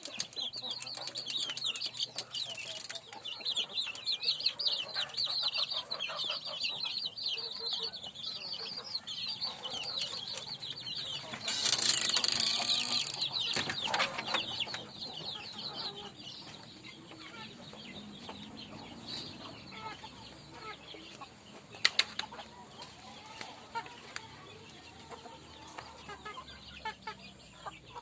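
Village chickens in a coop: many high peeping calls overlap through the first part, with a louder rush of noise about twelve seconds in, then quieter scattered low clucks and a single sharp click near the end.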